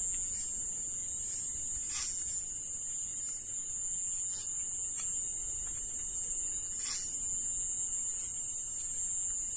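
Steady high-pitched shrilling of night insects, with short clicks or chirps every second or two; a second, higher layer of the chorus joins about four seconds in and drops out about nine seconds in.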